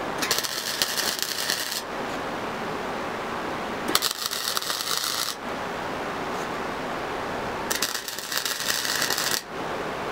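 Flux-core wire welder arc crackling three times, about one and a half seconds each, as short welds are laid on a steel-tube go-kart frame joint.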